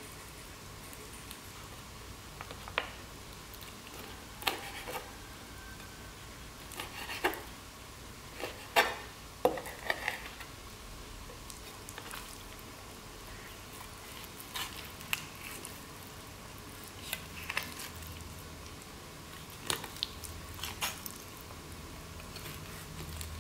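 Kitchen knife slicing raw pheasant meat off the carcass on a wooden cutting board: irregular sharp taps and clicks of the blade against the board, a few at a time with pauses between.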